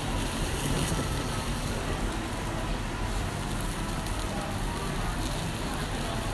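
Mackerel grilling on a wire mesh over a charcoal yakiniku grill, fat dripping into the coals and sizzling and crackling as flames flare up, over a steady low hum.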